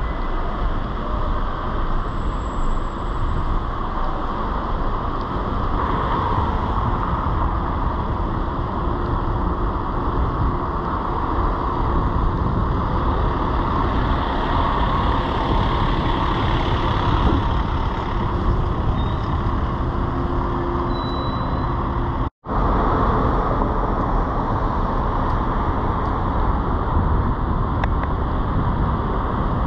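Steady riding noise from a bicycle moving through city streets: rushing wind on the microphone and tyre hiss on wet pavement, with road traffic around it. The sound cuts out for an instant about two-thirds of the way through.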